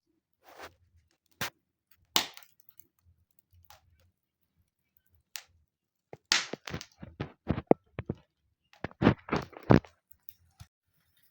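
Wood fire crackling in a fireplace: scattered sharp pops and cracks, with a quick run of pops in the second half.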